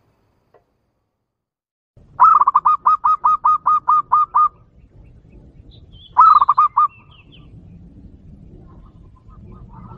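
Zebra dove (perkutut) lure call played through a small portable speaker: a quick, clear run of about a dozen rolling coo notes, then a shorter run of about five notes a couple of seconds later.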